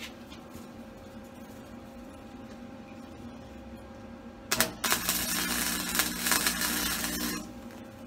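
Flux-core wire welder striking an arc for a tack weld on thick steel: a click about four and a half seconds in, then about three seconds of loud, steady crackling that cuts off sharply. A low steady hum lies under it.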